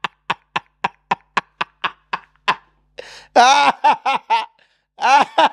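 A man laughing hard: a run of breathy laugh pulses, about four a second, that fades out. It breaks after a second-half pause into loud, high-pitched voiced laughing cries.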